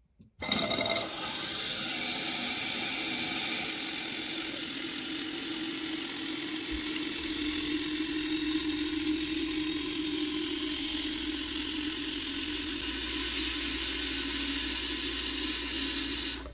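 Toilet-tank fill valve, its valve seal freshly replaced, running water into the tank with a steady hissing rush. It starts suddenly about half a second in and stops abruptly near the end. The valve is filling properly again, so the repair has worked.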